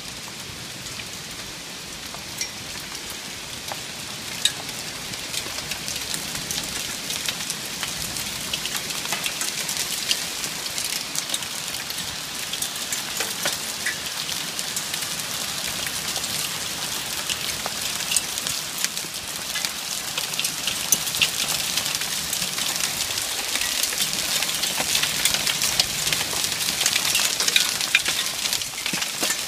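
Rain falling, a dense patter of drops on a surface, growing gradually louder.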